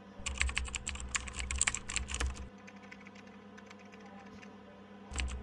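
Typing sound effect: a quick run of sharp key clicks lasting about two seconds, then a pause of under three seconds before the clicking starts again near the end.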